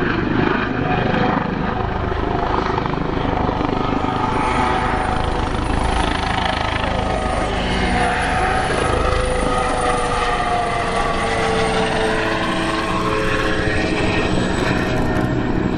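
Kawasaki OH-1 helicopter flying by: the rapid beat of its main rotor over the whine of its twin turboshaft engines and ducted tail fan. The whine slides up and down in pitch as the helicopter moves through its manoeuvres.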